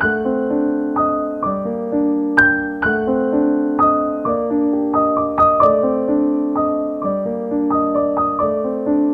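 Background piano music: a steady run of struck notes, each fading, over held lower notes.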